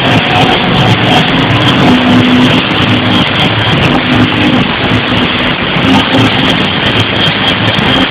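Loud dance-pop music over a club sound system, muddy and distorted as picked up by a phone's microphone, with a few held notes in the middle.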